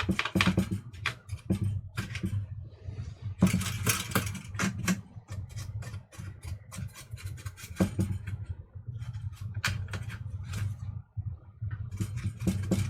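Irregular clicks, knocks and scrapes of the open toaster's parts being handled and worked on by hand, over a steady low hum.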